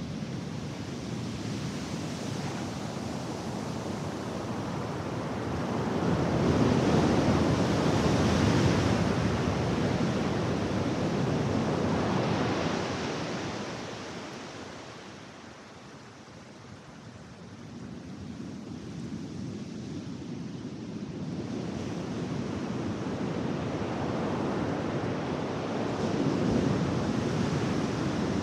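Ocean surf breaking and washing up the sand in a steady rush, swelling loud about a quarter of the way in, easing to a lull around the middle, then building again toward the end.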